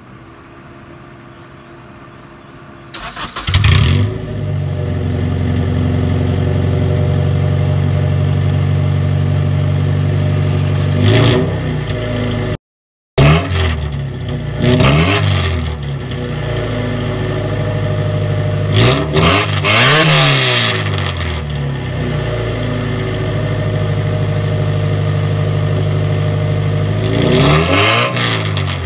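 Honda B20 four-cylinder engine on a straight-piped exhaust with no muffler. It cranks and starts about three seconds in and idles steadily, then is revved in short blips several times, the pitch rising and falling with each. The sound cuts out for a moment about halfway.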